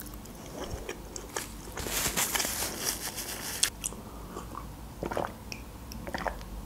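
Close-miked mouth sounds of eating and drinking: chewing with wet clicks, a hissing stretch lasting about two seconds, then sips and swallows from a mug.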